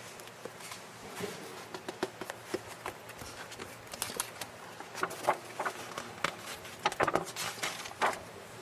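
Glossy paper brochure pages being handled and turned: irregular paper rustling and crinkling with sharp little clicks, busier and louder in the second half.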